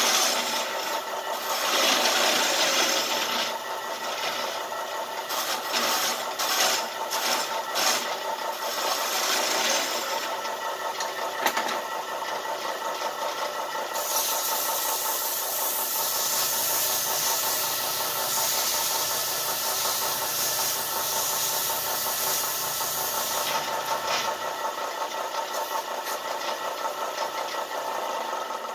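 Craftsman Model 103 four-speed wood lathe running steadily while a wooden spindle is worked by hand as it spins, adding a scraping hiss over the machine's hum. The hiss comes in short strokes at first and grows stronger and steadier about halfway through.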